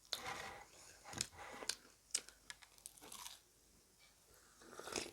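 A person chewing crispy deep-fried bhatura bread up close: a run of short, crisp crunches and mouth sounds, a pause a little past three seconds in, then more chewing near the end.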